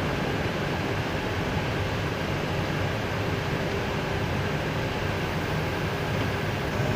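Steady cabin noise inside an Airbus A320 cockpit while taxiing: a constant low hum with an even rush over it that does not change.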